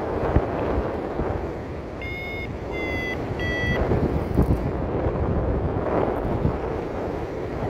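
Wind buffeting the microphone during a paraglider flight, with a paragliding variometer sounding three short beeps about two seconds in, the tone it gives when the glider is climbing.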